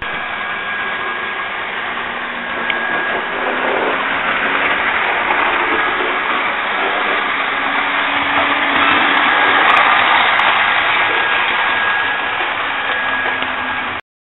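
H0-scale model track-cleaning train running: the small fan motor of the track vacuum-cleaner car whirring steadily, together with the diesel locomotive and rail-grinding car. It grows louder after about two seconds and cuts off suddenly near the end.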